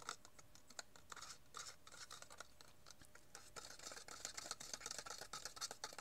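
Stirring rod scraping and clicking against the inside of a thin plastic cup while ferrous sulfate (iron vitriol) is stirred into hot water to dissolve it: rapid, irregular strokes that grow busier and louder about halfway through.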